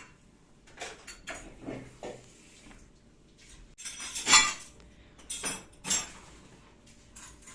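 Irregular clinks and knocks of hard objects, about a dozen, with the loudest a little past the middle.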